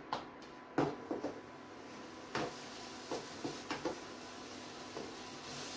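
Wooden spatula stirring grated beetroot in a kadhai, scraping and knocking against the pan about eight times at irregular intervals, over a faint steady hiss.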